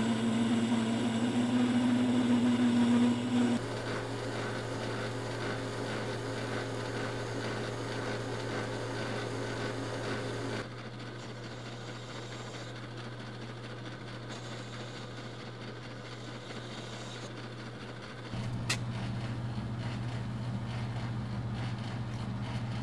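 Metal lathe running with a steady hum while drilling and turning a white PTFE (Teflon) workpiece, with a higher steady whine over the first few seconds. The sound shifts abruptly a couple of times, and a single sharp click comes late on.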